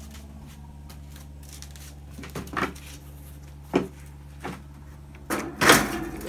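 Metal winch gearbox parts being handled and set down on a bench: a handful of scattered knocks and clunks, the loudest a longer clatter near the end, over a steady low hum.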